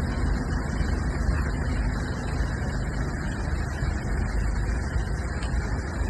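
Steady low rumble of a car driving: engine and road noise, with a faint steady hum in the first two seconds or so.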